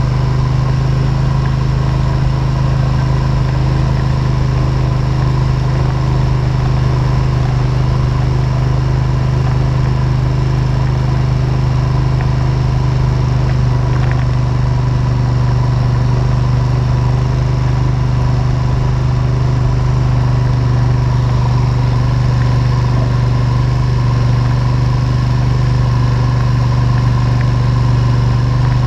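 ATV engine running steadily at an unchanging pitch, heard from a camera clamped onto the ATV itself.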